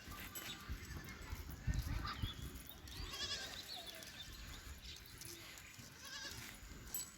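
Jamunapari goats bleating on a farm: two high, wavering bleats, about three seconds in and again about six seconds in, over low rumbling and knocks.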